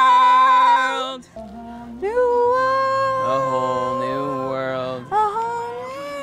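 A man and a woman singing in duet, holding the last word "world" until about a second in. After a short break, a voice sings a long held high note without words, and starts another about five seconds in.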